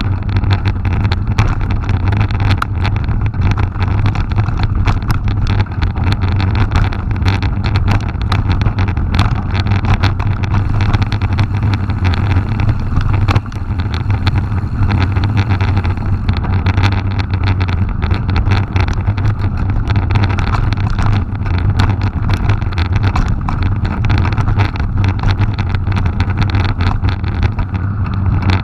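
Mountain bike descending a gravel track, heard from a bike-mounted action camera: a steady rush of wind on the microphone with the rumble of tyres on gravel and many small rattles and knocks from stones and the bike.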